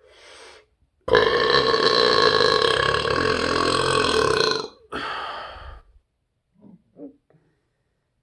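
A man's long, deep, deliberate burp lasting about three and a half seconds, followed after a brief break by a shorter burp. A faint short sound comes just before the long burp.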